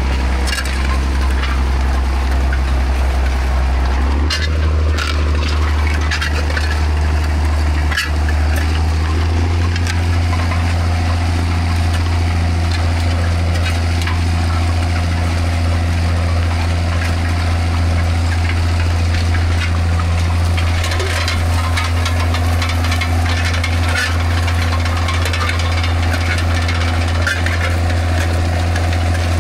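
John Deere tractor engine running steadily under load as it pulls a disc harrow, its speed stepping up twice, about four and about nine seconds in. A few sharp knocks come around five and eight seconds in.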